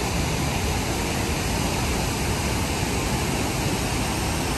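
The Rhine Falls, a wide waterfall, pouring over rocks with a steady, even rush of white water.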